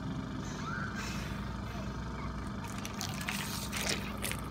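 Gulping water from a plastic bottle, then water spilling from the mouth and dribbling and splashing onto clothing near the end.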